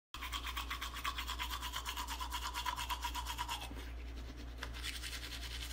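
Toothbrush scrubbing teeth with quick back-and-forth strokes, about five a second, over a steady low hum.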